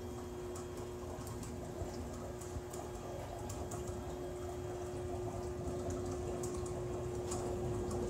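Water bubbling and gurgling inside the water-filled acrylic column of a buoyancy-type gravity power generator, over a steady machine hum. Scattered faint ticks run through it.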